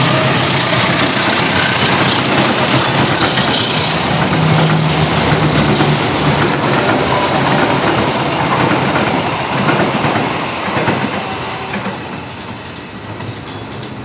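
A KAI CC201 diesel-electric locomotive and its passenger coaches run past. The locomotive's engine is heard first, then the coaches' wheels running on the track. The sound dies away over the last few seconds as the train moves off.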